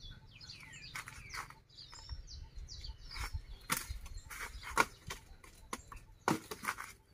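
Small birds chirping in short gliding calls, with sharp cracks and rustles from dry sticks and roots being pulled and handled on dry leaf litter. The cracks come in the second half, the loudest about two-thirds of the way in.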